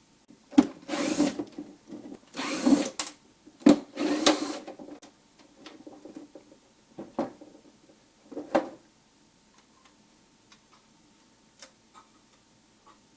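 Hand-disassembly of a car's plastic instrument cluster: sharp clicks, knocks and scraping as parts are worked loose. The noise is busiest in the first five seconds, and after that only a few light clicks come.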